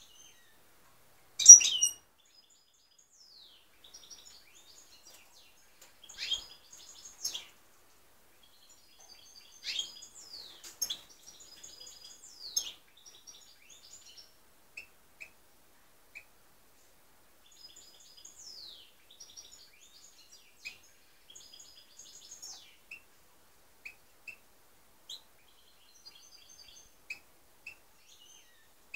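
Caged European goldfinches singing and calling: a loud call about a second and a half in, then bouts of quick, high twittering song with rapid sliding notes, thinning out to scattered single chirps in the second half.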